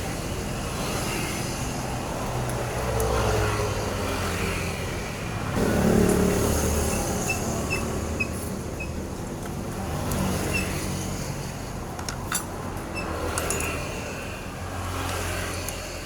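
Background road-vehicle noise swelling and fading as vehicles pass, with a cluster of sharp clicks about twelve seconds in.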